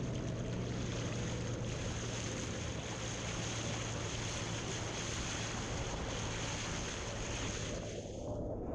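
Steady wind and water noise from an eFoil moving over the sea, with a constant low hum underneath and a steady high hiss throughout.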